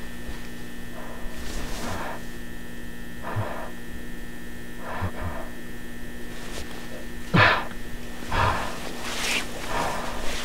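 Steady electrical hum and buzz of fluorescent ceiling lights, picked up by a handheld camcorder. Over it come soft, irregular noises of the camera being carried at a walk over carpet, with a louder bump about seven seconds in.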